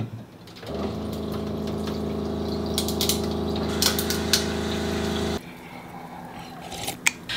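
Water dispenser's pump running with a steady hum as it pours a drink of water; it starts about a second in, with a few light clicks midway, and cuts off suddenly after about four and a half seconds.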